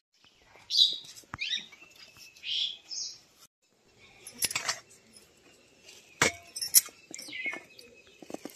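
Birds chirping in short, high calls now and then, with a few sharp clicks and clinks in between.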